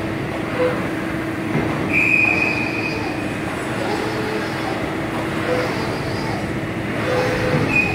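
A 400-ton hydraulic CNC press brake running with a steady hum. A short high whine comes about two seconds in and again at the very end.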